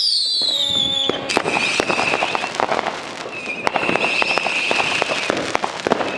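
Fireworks going off all around: a whistle falling in pitch that ends about a second in, then many sharp bangs and crackling cracks, with shrill whistling fireworks holding a steady note twice in the middle.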